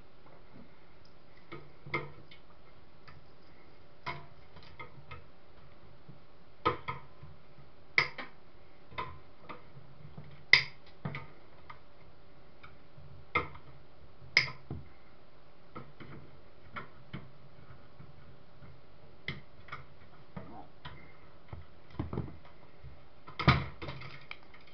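Irregular small clicks and knocks of metal parts and hand tools being handled while a CCTV camera's metal chassis is taken apart, the loudest knocks about ten seconds in and near the end.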